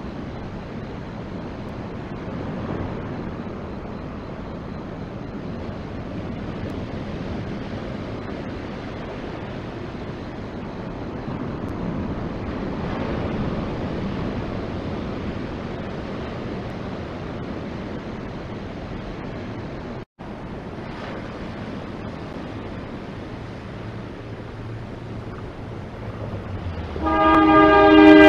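Surf breaking and wind on the microphone as a steady wash, with a momentary dropout about two-thirds of the way through. Near the end a Taiwan Railway train's horn sounds loudly, several pitches at once.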